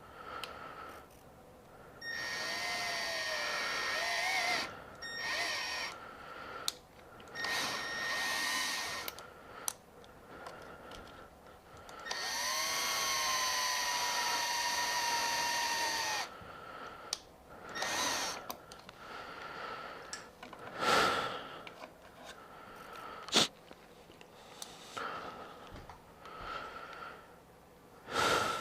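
Power drill running in four short bursts, the longest about four seconds, its motor whine dipping and rising as the bit bites, drilling holes to mount a part. Scattered clicks and knocks of handling follow, with one sharp click.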